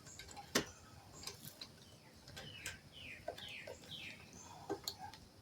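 Light clicks and taps of metal parts and tools being handled, one sharper click about half a second in. In the middle, a bird gives four short chirps, each falling in pitch.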